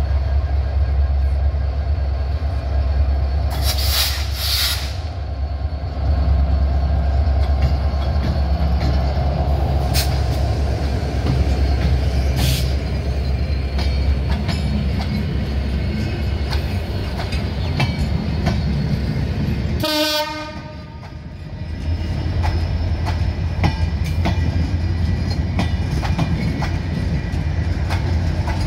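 American-built EMD diesel-electric locomotive pulling a passenger train away from the platform: its diesel engine makes a steady, heavy rumble as it passes. The coaches then roll by, wheels running on the rails.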